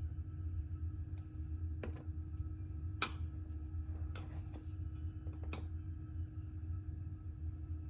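A steady low hum with a few sharp clicks spread through it, the loudest about three seconds in, and a short rustling smear about four seconds in.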